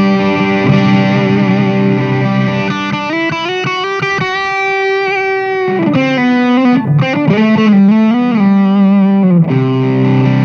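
Electric guitar with overdrive: ringing chords, then about three seconds in a long held lead note, bent and shaken with vibrato, and a short run of bent notes, returning to sustained chords near the end.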